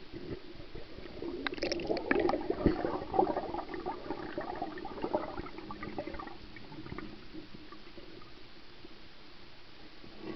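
Underwater sloshing and gurgling heard from a camera moving through the water, with scattered clicks and knocks, busiest in the first half and quieter after about seven seconds.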